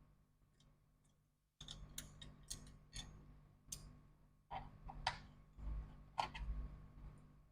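Scattered small clicks and ticks of hands and small tools working on a laptop, starting after a quiet second and a half, with a couple of dull low knocks in the second half.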